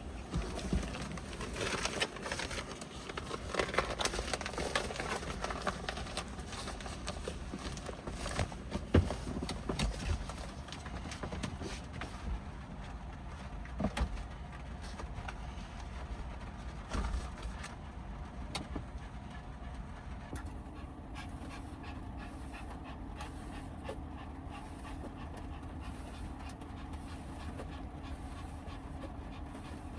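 Pomeranian dog panting, with scattered knocks and clicks over the first twenty seconds or so.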